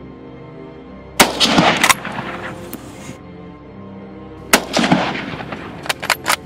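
Two shots from a Karabiner 98k Mauser rifle in 7.92×57 mm, about three seconds apart, each followed by a rolling echo, with a few short sharp clicks near the end. Background music plays underneath.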